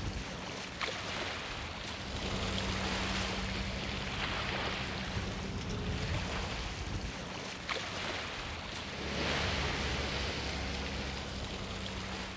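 Wind buffeting the microphone over small waves washing on the shore, with a vehicle engine humming low as the ute reverses the boat trailer.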